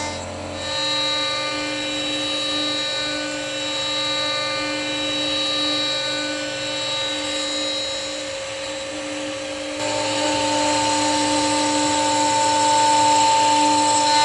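Executive Model 8 CNC milling machine's spindle whining as its end mill cuts 20 mm aluminium plate, steady with several high tones over a cutting hiss. The tone shifts just under a second in and becomes louder about ten seconds in as the cut changes.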